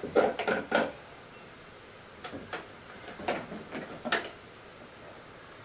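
Toy play kitchen's plastic doors and parts being handled, opened and shut: a quick run of light clacks in the first second, then a few scattered knocks between about two and four seconds in.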